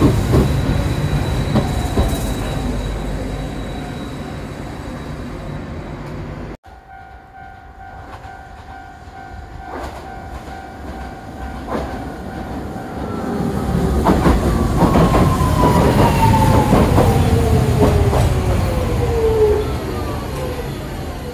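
Hiroden Miyajima Line electric trains. The first one's rumble fades, then cuts off suddenly. A second one approaches and pulls in, with several whines falling in pitch as it slows.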